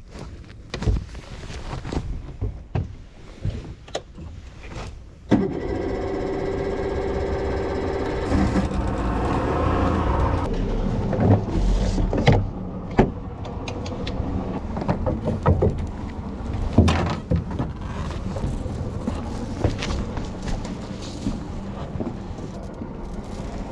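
A boat engine is started about five seconds in, after a few knocks and clicks, and keeps running steadily, with more knocks heard over it.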